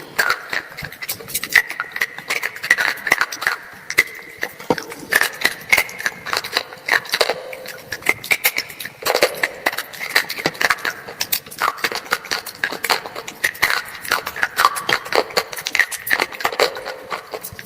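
Close-up crunching and chewing of a hard, dry, brittle black slate-like item: a continuous run of sharp, irregular crunches and crackles.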